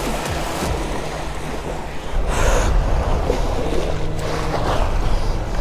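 Small waves washing and breaking on a sandy beach, with wind buffeting the microphone in a low rumble. A louder rush of surf comes about two seconds in.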